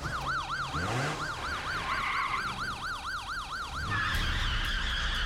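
Police car siren in its fast yelp, the pitch rising and falling about four times a second. About four seconds in, it gives way to a louder steady rushing noise with a low rumble as the cruiser pulls away.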